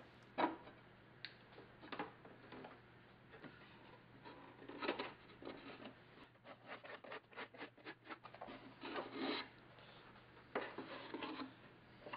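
Faint handling noise as a thin wooden strip is laid across cedar deck strips and held with spring clamps: scattered light clicks, taps and short scraping rubs of wood on wood, with a run of quick clicks between about six and eight seconds.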